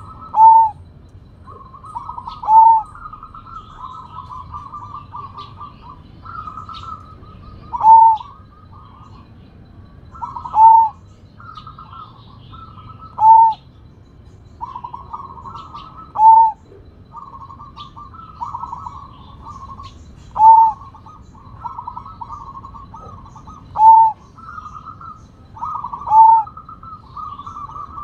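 Zebra dove (perkutut) cooing: a run of quick rolling coos ending in a loud, clear final note, repeated nine times, every two to four seconds.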